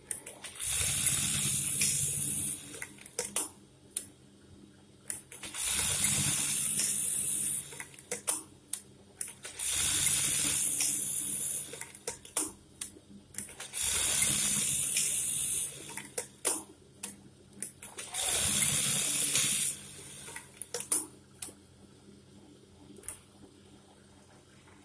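Brother 814-2 industrial buttonhole sewing machine running five buttonhole cycles, each a burst of fast stitching lasting about two seconds, one roughly every four seconds. Short clicks come between the cycles as the machine stops and the fabric is moved on.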